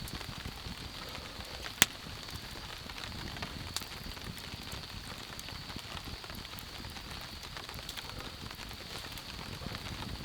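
Steady rain falling, with scattered drips and taps and one sharp, loud tap about two seconds in.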